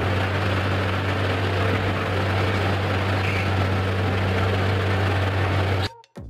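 Rail ballast cleaning machine working on the track: a steady low engine drone under a constant rushing noise of machinery and stone, cutting off suddenly near the end.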